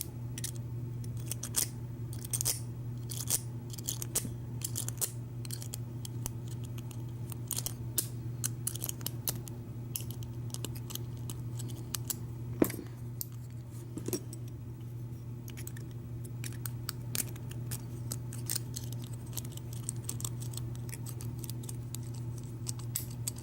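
Small metallic clicks and scrapes, irregular and close together, as a lock pick and shim work the pins of a Schlage deadbolt cylinder to free the plug, with one sharper click about halfway through. A steady low hum runs underneath.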